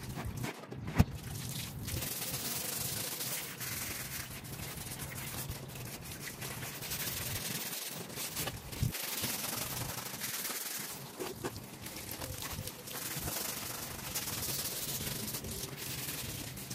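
A brush working over the floor in continuous, uneven scrubbing strokes, with one sharp knock about a second in.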